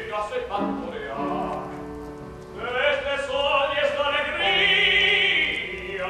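Classical operatic voice singing with a wide vibrato over piano accompaniment; held piano notes carry the first couple of seconds before the voice comes in strongly and swells near the end.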